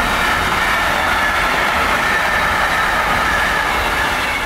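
Container freight train's wagons rolling past on the rails, a loud steady rumble with a faint thin ringing from the wheels. It begins to fade near the end as the last wagons pull away.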